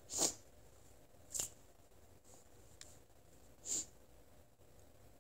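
Three short, sharp nasal sniffs, one right at the start, one about a second and a half in and one near four seconds: snuff being snorted up the nose.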